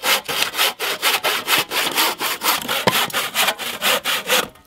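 Hand saw cutting through a dry, dead branch in quick back-and-forth strokes, about five a second, stopping abruptly near the end.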